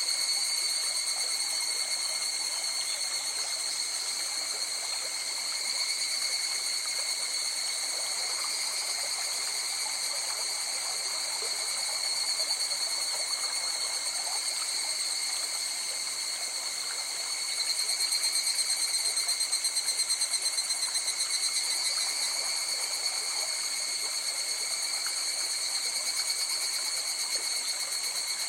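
A river flowing, with insects trilling steadily over it in several high pitches. The trilling swells and pulses for a few seconds about two-thirds of the way through.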